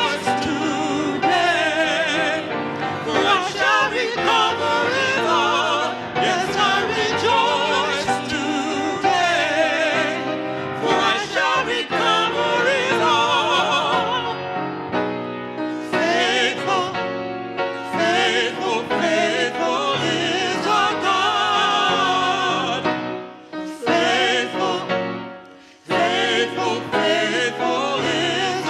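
Church music: a voice singing in an operatic style with strong vibrato over instrumental accompaniment. The sound thins out and drops briefly a few seconds before the end, then comes back.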